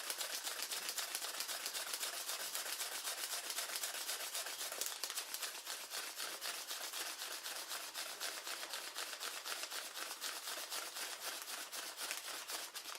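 Paper origami flapping bird being worked by hand, its folded paper rustling in quick, even strokes as the wings flap.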